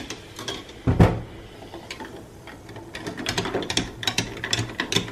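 Metal straws stirring ice in glass wine glasses: a single knock about a second in, then a rapid run of clinks and rattles from about three seconds on.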